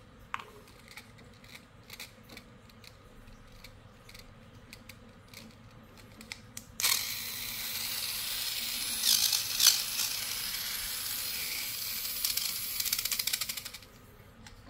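Light clicks of plastic parts being handled, then about halfway through the small DC motor of a 3D-printed mini 2WD car starts running, a steady high whir through its gears with the wheels spinning free. Near the end it stutters rapidly and stops.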